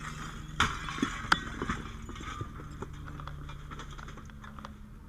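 Clunks and knocks of a firefighter's gear and footsteps moving through debris: a few sharp hits in the first second and a half, then lighter scuffs and ticks, over a steady low hum.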